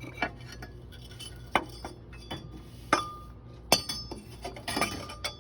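Metal hand tools clinking and knocking against metal engine parts: about six sharp metallic clinks spread out, one leaving a short ringing tone.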